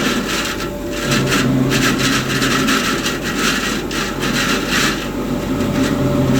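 NPSh-01 stuffing machine running, a steady rushing noise with a constant hum. A lower drone swells in and drops out three times.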